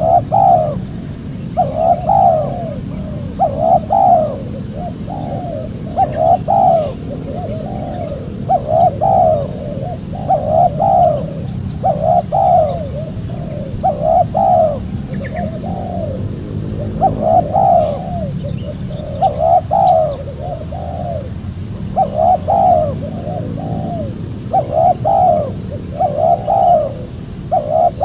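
Spotted dove cooing over and over, a short phrase of a few coo notes about every one and a half to two seconds, over a steady low background hum. This is a tekukur caller recording meant to lure wild doves.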